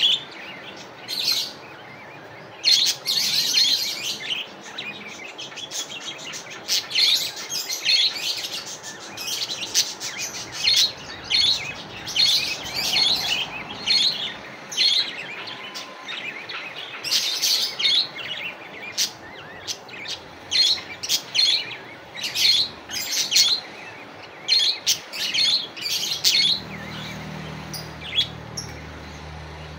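Budgerigars chirping and chattering in short, quick, irregular bursts.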